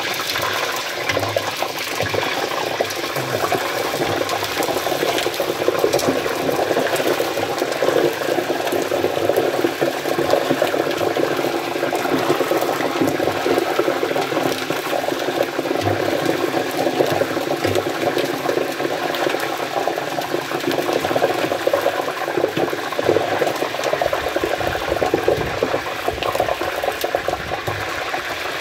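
Chicharon (pork skins) deep-frying in a large aluminium pot of hot oil: a loud, steady sizzling and bubbling with dense crackle. Ice has just been added to the oil, and the skins are in the last stage of puffing up to crisp.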